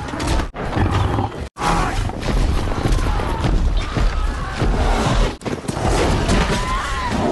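Film battle soundtrack: a dense din of cavalry fighting, horses and animal roars under orchestral score. It cuts out abruptly for an instant at hard edits, about half a second, a second and a half, and five and a half seconds in.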